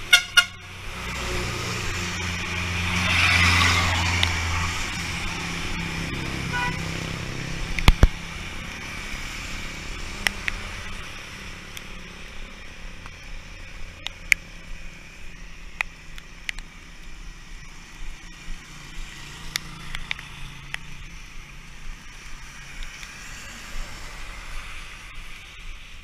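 A motor vehicle's engine swells as it passes and fades after a few seconds, then a steady low engine hum of street traffic continues, with a sharp knock about eight seconds in and scattered small clicks.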